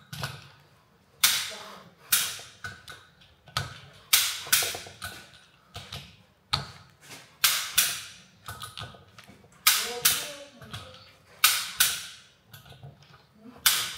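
Sharp clicks and knocks from hand tools at work on a van's rear brake hub, coming irregularly one or two at a time about every second, each ringing briefly.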